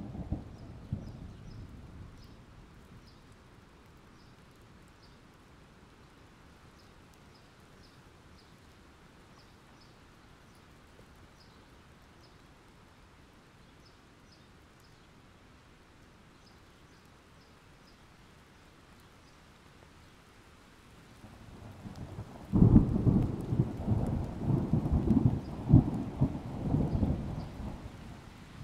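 Thunderstorm: a thunder rumble dies away in the first two seconds, leaving quiet, steady rain. About 22 seconds in, a loud thunderclap breaks and rumbles on with several cracks for about six seconds.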